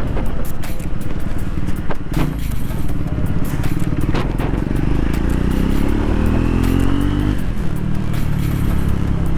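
Triumph 400X's single-cylinder engine pulling under way: its note rises steadily from about five seconds in, then drops sharply at an upshift about two and a half seconds later. A couple of short knocks come earlier.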